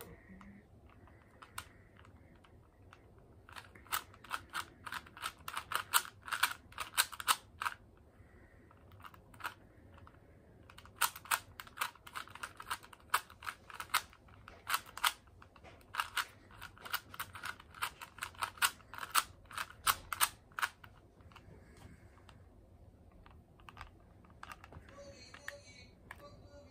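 A standard Rubik's cube being turned by hand in quick runs of moves, its plastic layers clicking rapidly. The runs of clicks come in spells of several seconds, with short pauses between them, and die away over the last few seconds.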